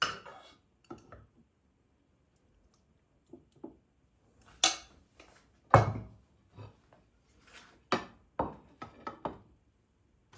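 Kitchen dishes and utensils being handled: a series of irregular knocks and clinks, the loudest about six seconds in.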